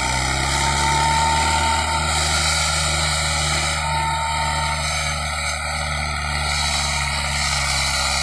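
Mahindra Arjun Ultra 555 tractor's diesel engine running steadily under load as it pulls a trailer loaded with sugarcane, its pitch holding constant.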